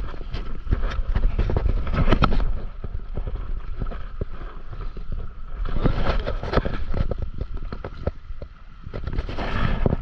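Wind buffeting the microphone of an action camera on a stand-up paddleboard, with water slapping and splashing against the board in many short irregular knocks. It eases briefly about eight seconds in.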